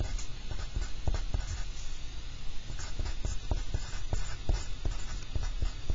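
Wooden pencil writing on a paper worksheet: a quick, irregular run of small scratches and taps of the lead on the page.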